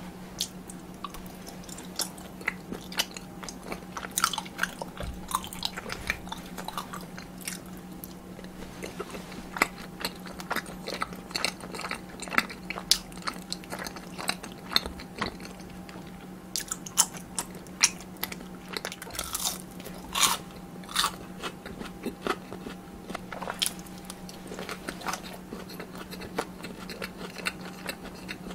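Close-miked eating of tteokbokki rice cakes and fried cheese sticks: irregular bites, crunches and chewing sounds, over a steady low hum.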